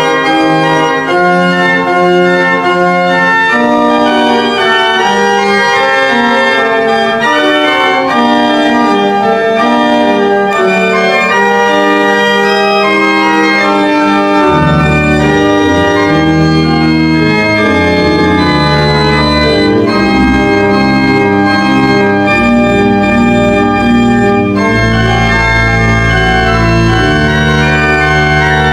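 Newly renovated church pipe organ being played: held chords and moving lines of sustained notes. Deep pedal bass notes come in about halfway through.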